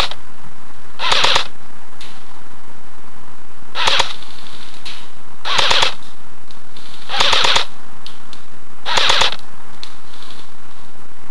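Airsoft rifle firing six short full-auto bursts of rapid clicking shots, one every second and a half to two seconds.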